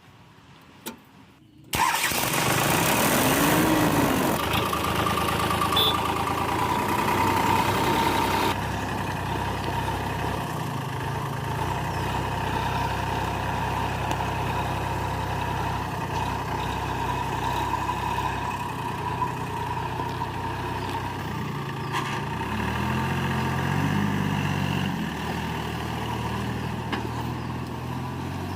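Heavy diesel engine of the backhoe loader or tractor running. It comes in suddenly about two seconds in, loud and hissy for several seconds, then settles into steadier running, with the pitch rising and falling near the end.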